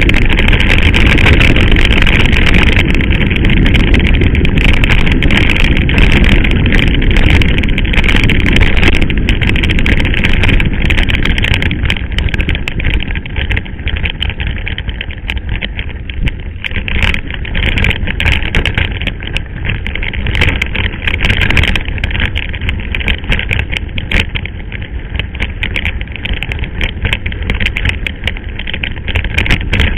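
Mountain bike riding over a rough, stony dirt track: wind noise on the camera's microphone, tyres crunching on gravel and the bike rattling over stones. Loudest for the first ten seconds or so, then a little quieter.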